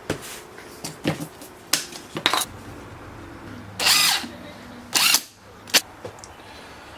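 Drill press running steadily while cutting a slot, with about seven short, loud bursts of cutting noise as the bit bites into the workpiece.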